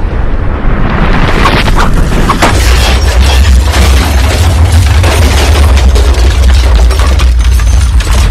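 Volcanic eruption: a loud, continuous deep booming rumble with dense crackling over it, growing heavier about a second in.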